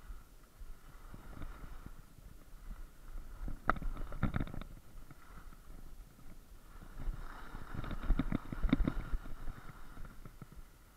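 Skis scraping and chattering over packed snow, louder in two turns about four and eight seconds in, over a low muffled rumble of motion.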